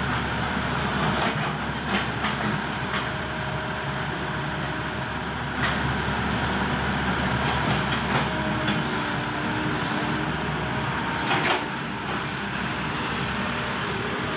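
Hydraulic crawler excavator running steadily with a low engine drone, with a few short knocks as the bucket works a tyre.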